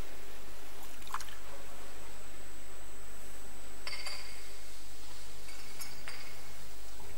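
A few light clinks of a chalice and small altar vessels being handled, the later ones with a brief ringing, as the vessels are cleaned after communion.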